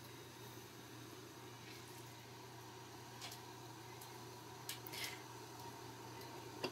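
Faint kitchen background: a steady low hum over a pot of maple syrup at a rolling boil, with a few light clicks about three and five seconds in as a hydrometer is handled at its test cup.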